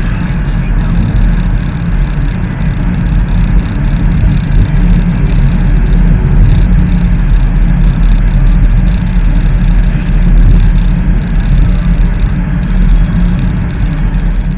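Chevrolet Camaro convertible driving with the top down: steady, loud wind and road noise.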